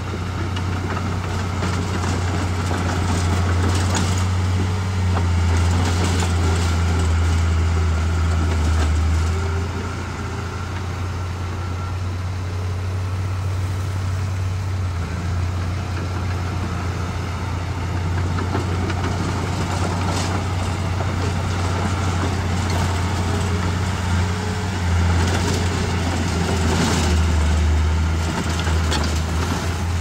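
Diesel engine of heavy earthmoving machinery running, its low drone swelling and easing as the load changes, with a few brief rattles.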